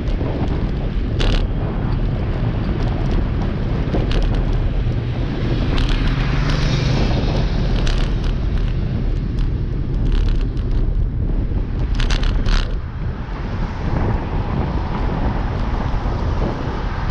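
Wind buffeting the microphone of a camera on a moving bicycle, a steady loud rumble with traffic noise mixed in. A few sharp clicks or rattles come through, several together about twelve seconds in.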